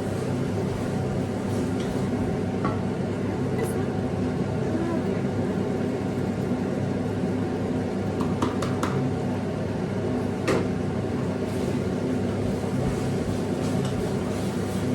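Kitchen extractor hood fan running with a steady hum, with a few light clicks of utensils or dishes, the sharpest about ten seconds in.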